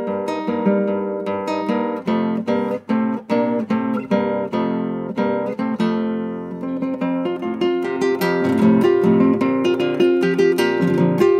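Solo classical guitar played fingerstyle: a quick run of plucked melody notes over a bass line, growing fuller and louder about eight seconds in.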